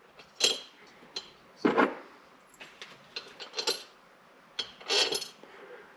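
Bolts clinking and scraping against the metal of the compressor's cylinder head as they are set into their holes by hand, in a few separate short bursts.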